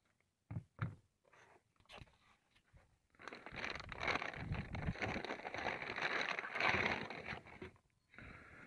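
Hands digging through clear plastic bags in a cardboard box. A few light knocks come first, then about four seconds of loud crinkling and rustling of the plastic.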